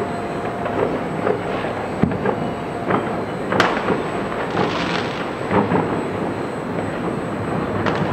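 Distant fireworks going off: irregular bangs and pops over a steady city rumble, the sharpest crack about three and a half seconds in, with a brief crackling hiss just after.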